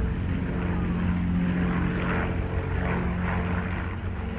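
Avro Lancaster bomber's four Rolls-Royce Merlin V12 engines droning steadily as it flies past overhead.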